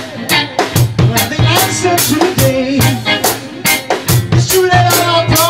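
A rock band jamming: a drum kit keeping a steady beat under bass and melody instruments whose lines waver in pitch.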